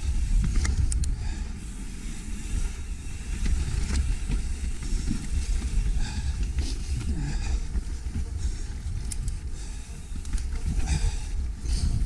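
Mountain bike riding fast down a dirt trail: wind buffeting the microphone over the rumble of tyres on dirt, with scattered sharp clicks and clatters from the bike.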